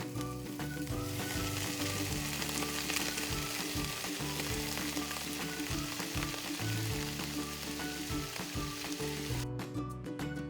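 Food frying in hot oil in a miniature pan, a steady sizzle that cuts off suddenly near the end, with background music underneath.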